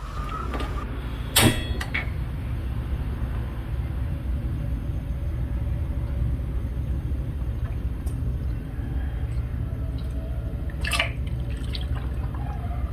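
Gas stove knob turned on, with one sharp igniter click about a second and a half in, then the burner's steady low rumble; another sharp knock near the end.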